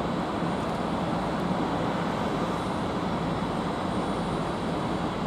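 Stationary LNER Class 800 Azuma bi-mode train idling, its underfloor diesel generator units and cooling fans giving a steady, even running noise.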